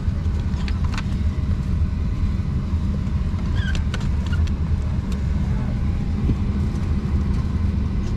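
Steady low rumble of a parked Boeing 737-800's cabin ventilation, with a few light clicks from the plastic seatback tray table being handled.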